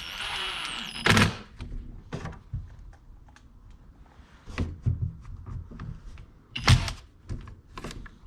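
Hard objects knocking and clicking as tools and chainsaw parts are handled on a workbench, with two loud clunks, one about a second in and one near the end, and lighter clicks between.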